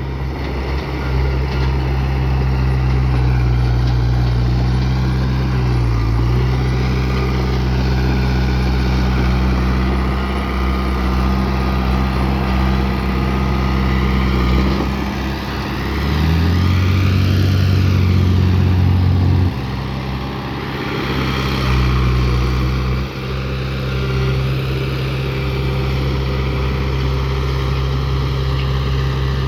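Heavy earthmoving machine's diesel engine running steadily. It loads up, louder and at a shifted pitch, for about three seconds just past the middle, then cuts back sharply to its steady note.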